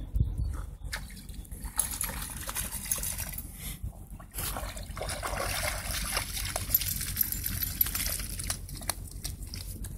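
Water splashing and sloshing as a spaniel paddles and wades through shallow lake water and climbs out onto the bank.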